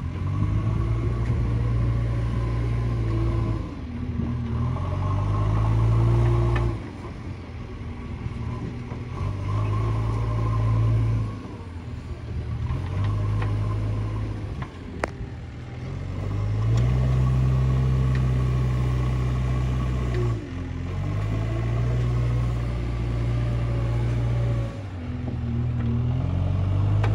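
JCB 3DX backhoe loader's diesel engine working under hydraulic load while it digs and loads earth. It revs up for several seconds at a time and drops back between strokes. A single sharp knock comes about halfway through.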